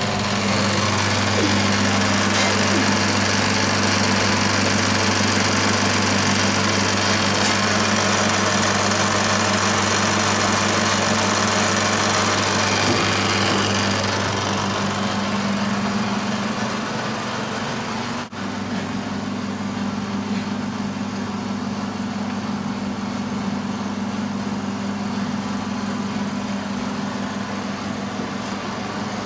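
Steady, loud machine-like noise: a constant deep hum over an even hiss. A brief drop-out comes about eighteen seconds in, after which the hiss is softer.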